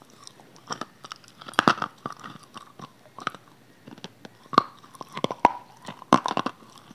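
Close-miked crunching as a person bites into and chews a hard, crumbly white block, with loud crunches about a second and a half in, near the middle, and twice toward the end, and softer chewing between.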